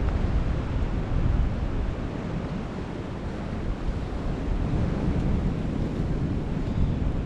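Sea surf washing in, with wind buffeting the microphone as a steady rumbling noise.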